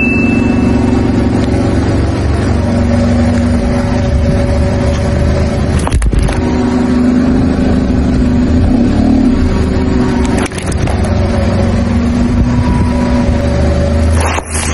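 Car engine running at low speed, a steady hum with a slowly drifting pitch, briefly interrupted a few times.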